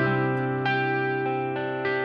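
Instrumental background music: slow plucked guitar notes that ring on, a new note struck about two-thirds of a second in and again near the end.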